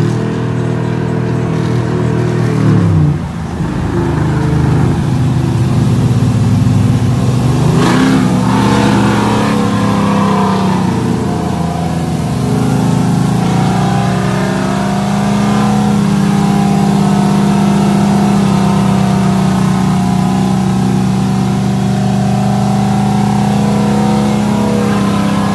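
Modified V8 pickup truck exhaust under hard acceleration. The revs drop at a gear change about three seconds in, climb again, then settle into a steady drone as the trucks cruise.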